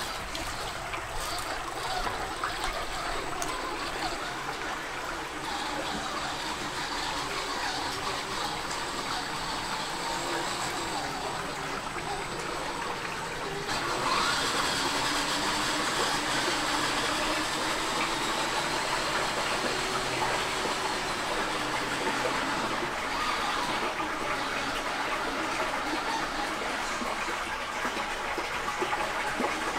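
Creek water running and splashing around a Redcat Gen8 Scout II 1/10-scale RC crawler as it drives through, with a faint whine from its electric drivetrain rising and falling. About halfway through the water sound gets louder as the truck drives through a water-filled culvert pipe.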